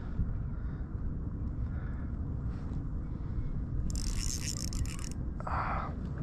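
Wind buffeting the microphone as a steady low rumble, with a brief high hissing rattle about four seconds in and a softer rush about a second later.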